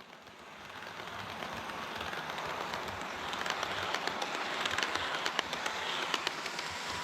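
HO scale model train running on the track: a steady rolling hiss that grows louder over the first couple of seconds, with rapid, irregular clicks of the wheels over the rail joints from about halfway.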